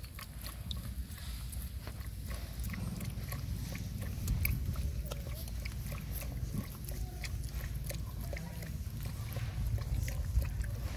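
Puppies suckling at their mother dog's teats: many small wet sucking and smacking clicks and a few short grunts, over a steady low rumble.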